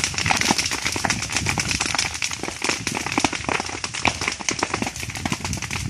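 Brush fire crackling: dry vegetation burning with rapid, irregular sharp pops and snaps over a steady rushing hiss.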